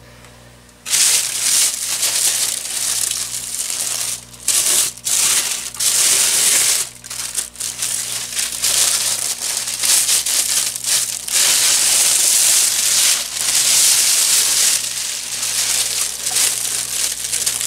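Thin plastic wrapper bag crinkling loudly as a bookshelf speaker is pulled out of it, in stop-start rustles with short pauses.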